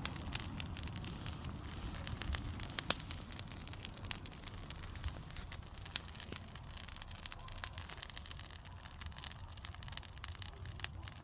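Large bonfire burning, with irregular sharp pops and crackles over a low rumble.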